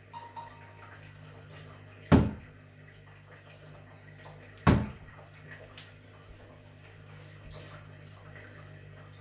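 Two darts striking a dartboard hung on a door: two sharp thuds about two and a half seconds apart, the first about two seconds in. A steady low hum runs underneath.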